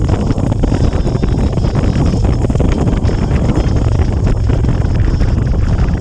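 Steady wind noise buffeting the microphone of a camera on a motorcycle moving at road speed, with a low rumble underneath.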